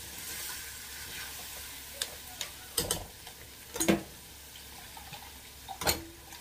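Ground beef and tomato sauce sizzling in a stainless steel frying pan while being stirred with a metal spatula, with three sharp knocks of metal on the pan, about three, four and six seconds in, the middle one the loudest.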